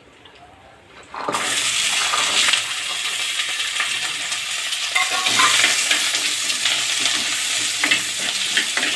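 Masala ingredients going into hot oil in a pan: quiet at first, then a loud sizzle starts suddenly about a second in and carries on as steady frying, with the clicks of a spoon stirring them in the pan.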